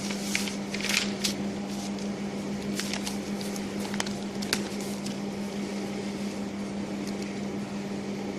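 Electric laboratory furnace humming steadily while it heats, with a few brief clicks and rustles over the hum.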